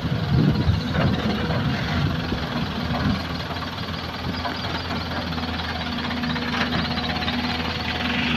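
Diesel engine of a fully loaded Isuzu light dump truck running steadily as the truck moves slowly past, a little louder in the first second.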